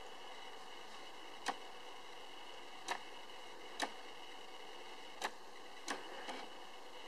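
Steady faint background hiss broken by about six short, sharp clicks at irregular intervals.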